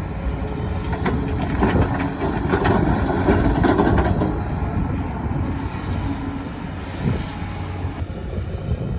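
Excavator working rock: its diesel engine running under load, with heavy scraping and grinding of the bucket against rock, loudest from about one to four seconds in.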